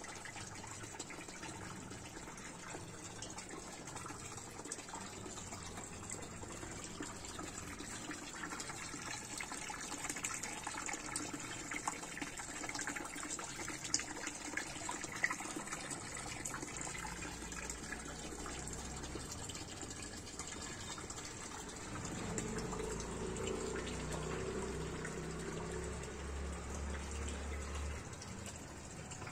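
Small garden water feature running: a steady stream of water falling from a tipped pot into a basin of water. A low hum joins in for several seconds near the end.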